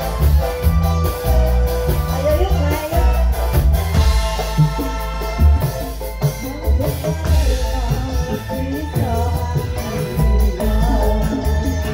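A live stage band playing an upbeat dance song over a PA, with drums, bass and guitar keeping a steady beat, while amateur singers sing the melody into microphones.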